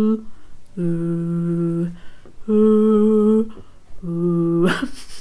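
A woman humming an imitation of a microwave's defrost-mode noise: four steady droning tones, each about a second long, alternating between a higher and a lower pitch.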